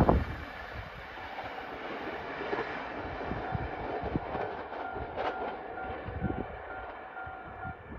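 A train running through the station at speed and fading as it goes: a falling rumble with irregular wheel knocks over the rail joints. A faint steady tone sounds from about three and a half seconds in until near the end.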